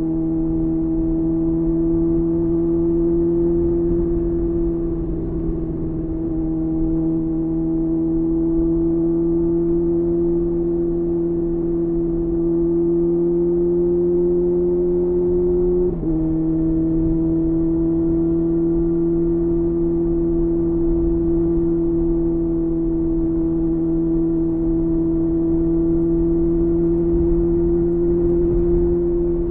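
2023 Kawasaki ZX-6R's 636 cc inline-four running through a LeoVince LV10 carbon slip-on exhaust at steady part throttle, its pitch creeping slowly up. About halfway through the pitch drops sharply as it shifts up a gear, then creeps up again.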